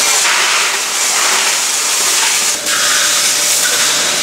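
Loud, steady hiss and rattle of a large batch of hot cooked river snails in a big stainless-steel stir-fry pot as they are scooped out and poured. The sound briefly dips about two and a half seconds in, then carries on.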